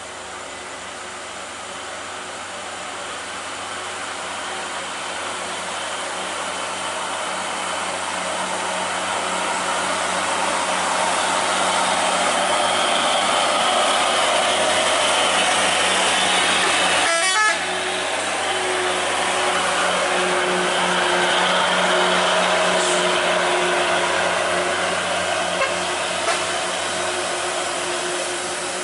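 Heavy diesel trucks climbing a steep grade, engines working hard under load, the noise building as a truck draws near and passes. About two-thirds in there is a sudden break, after which another truck's engine comes on with a steady droning note.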